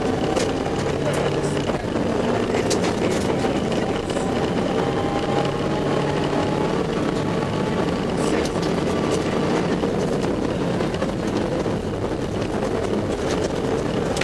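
Rally car engine running hard under load, heard from inside the cabin, its pitch climbing slowly through the middle as the car accelerates. Sharp clicks and knocks are scattered throughout.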